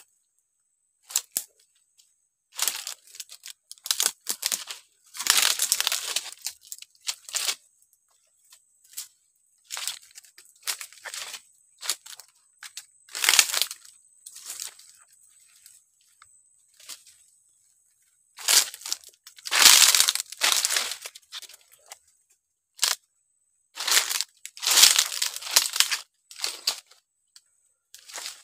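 Dry leaves and dead palm fronds rustling and crackling as they are disturbed, in irregular bursts a second or two long with short silences between.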